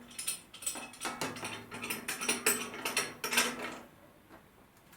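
A clamp being put on and tightened: a run of quick ratcheting clicks and clacks that stops a little before the end.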